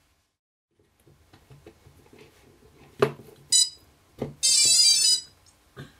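DJI F450 quadcopter powered up from its flight battery: a sharp click as the lead is connected, a short high beep, another click, then a warbling electronic startup tone of about a second.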